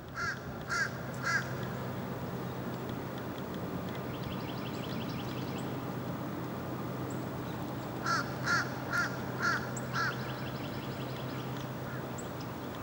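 A crow cawing: three harsh caws at the start, then a run of five about eight seconds in. Under them runs a steady low hum from a distant diesel locomotive, and faint rapid ticking runs come in between the caws.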